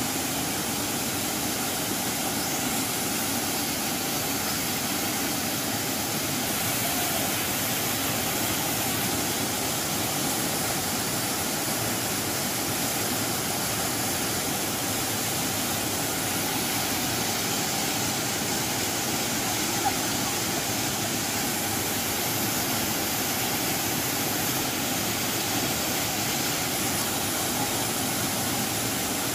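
Waterfall rushing steadily: a constant, even hiss of falling water.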